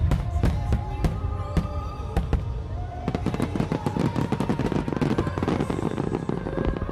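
Fireworks display: aerial shells bursting in repeated sharp bangs, thickening about halfway through into a dense, rapid crackle as many shells and ground fountains fire at once.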